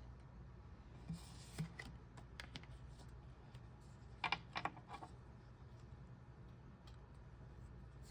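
Light handling of a card game's cards and box: a few soft clicks and taps, with a quick cluster about four seconds in, over a low steady hum.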